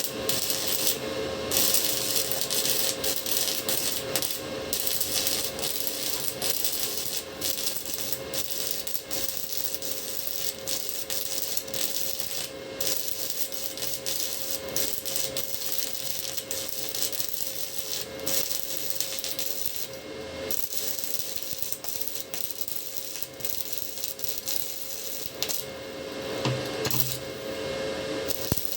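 The arc of a ZX7-255 inverter stick (MMA) welder crackling and sizzling steadily, with a few brief breaks where the arc drops out.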